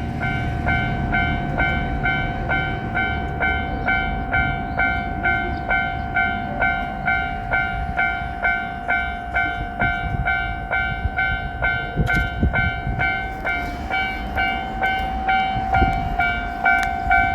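Japanese level crossing's electronic warning bell ringing in a steady, even rhythm, a little under two strokes a second. A train's low rumble runs beneath it.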